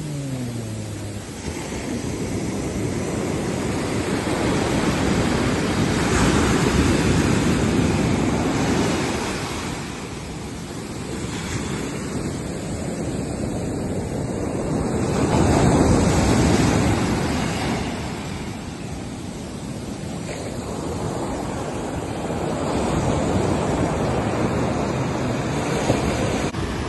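Ocean surf breaking on a beach: a steady rush of waves that swells to a peak and falls back about every eight to nine seconds.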